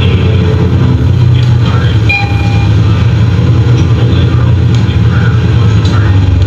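Nova Bus LFS city bus heard from inside while riding: a steady, loud low rumble of engine and road. A brief high tone sounds about two seconds in.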